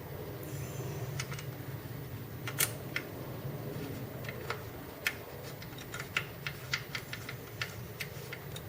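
Irregular sharp clicks and taps from handling a Shimano PD-M520 pedal and Allen wrench while fitting the pedal to the bike's crank arm. The clicks start about two and a half seconds in, over a steady low hum.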